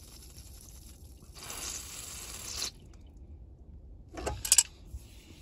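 Trapped air hissing out of a loosened fitting on a capped dead leg of a central-heating return pipe as the system is bled, with some water spitting; the hiss cuts off suddenly about halfway through. A short, loud clatter follows about four seconds in.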